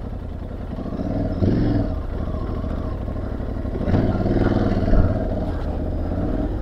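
Aprilia Tuareg 660's parallel-twin engine running on a sandy dirt trail, revving up twice with the throttle. There is a single thump about five seconds in.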